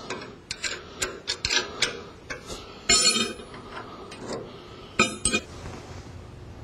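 Metal clicks and clinks from tools and a ruler being handled on a band resaw's guide assembly during adjustment, irregular, with a louder ringing clink about three seconds in and another about five seconds in. A faint low hum sets in near the end.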